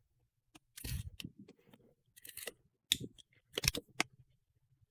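A package being opened and handled by hand: a few short rustling and scraping sounds with sharp clicks, in four brief bursts about a second apart.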